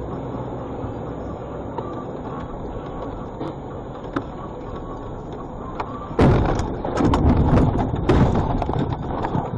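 Steady road and engine rumble from inside a moving vehicle on a snowy road. About six seconds in comes a sudden loud bang, then rough crunching and several more knocks as the vehicle runs off the road into the snowbank.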